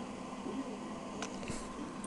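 Quiet room tone: a faint steady hum with two faint clicks a little past a second in.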